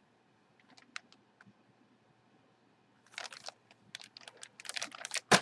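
Packaging being handled as a jersey is taken from its box: scattered light clicks, then bursts of rustling and crinkling from about three seconds in, and one sharp snap near the end.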